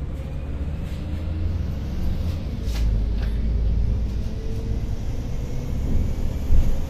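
Volvo Caio Procity city bus underway, a steady low engine and road rumble with light rattles, and a short thump near the end.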